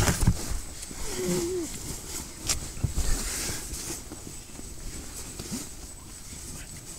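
Fabric rustling and a few soft knocks as sleeping-bag bedding and clothing are handled close to the microphone, with a short wavering whine about a second in.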